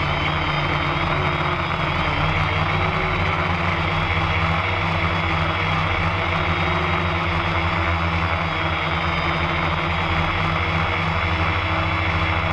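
FPV drone's electric motors and propellers running at a steady pitch, a hum with a high whine above it, as the drone descends to land.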